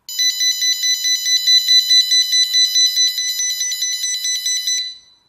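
Arduino alarm clock's buzzer sounding the alarm at its set time: a loud, high-pitched tone beeping rapidly, about five pulses a second. It stops about five seconds in when a keypad button is pressed to switch the alarm off.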